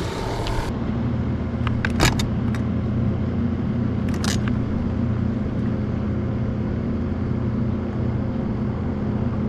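Steady low engine drone of passing motorboat traffic, with a few sharp clicks about two and four seconds in.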